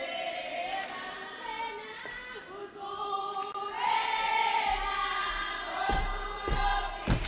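A group of voices singing together in celebration, swelling louder with cheering about four seconds in. A few dull thumps near the end.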